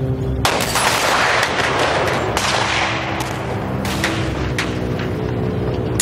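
War-film showreel soundtrack played over a hall's speakers: sustained music with battle sound effects. A sudden loud blast comes about half a second in and dies away over a couple of seconds, another follows, and then a string of sharp gunshot cracks.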